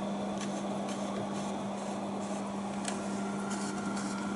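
Kodak Carousel S-AV2000 slide projector's cooling fan running with a steady hum, with a few faint clicks of the zoom lens being handled.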